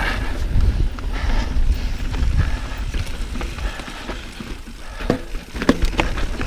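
Mountain bike running fast down a rough dirt trail: the tyres and frame rattle and knock over rocks and bumps, over a steady low rumble of wind on the microphone.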